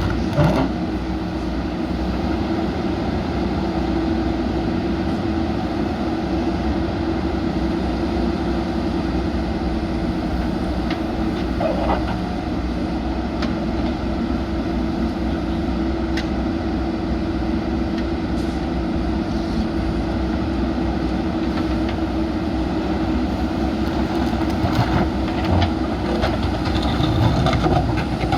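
JCB backhoe loader's diesel engine running at a steady speed, with a few short knocks and scrapes near the end.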